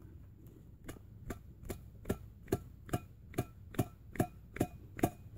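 Steady, even light knocks on an upturned metal food can, about two and a half a second, each with a brief metallic ring, starting about a second in: the can is being tapped to shake loose canned bologna stuck inside.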